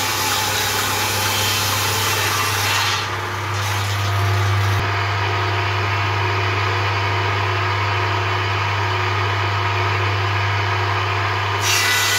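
Table saw running with a steady motor hum; its blade cuts through wood for about the first three seconds and again just before the end, with the saw running free in between.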